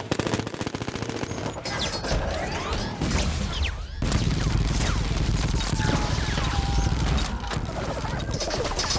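Rapid gunfire, shot after shot, with whistling tones gliding up and down over it. From about four seconds in, a heavy low rumble joins in, as in an edited action-film sound montage.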